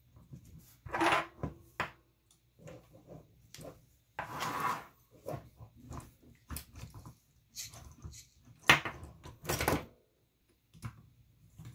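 Small clicks and taps of a hex driver and the plastic and metal parts of an RC crawler's front axle as a screw is driven into the steering knuckle. Four short, louder sounds stand out: about a second in, near halfway, and twice near the end.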